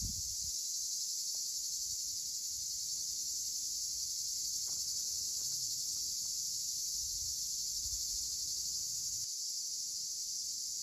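Steady high-pitched insect chorus over a rice paddy, with a low rumble of wind on the microphone now and then.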